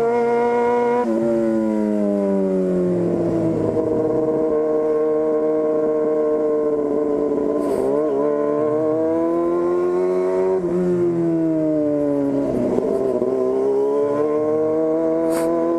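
Yamaha FZ6's 600 cc inline-four engine on the move, run through a straight-through 4-into-1 racing exhaust with no silencer, very loud. Its pitch climbs and drops back several times as the rider works the throttle and the gears.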